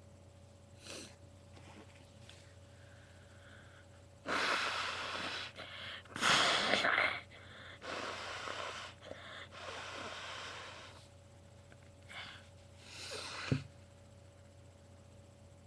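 A person blowing their nose forcefully: four long, noisy blasts of about a second each, then a shorter build-up ending in a sharp burst near the end.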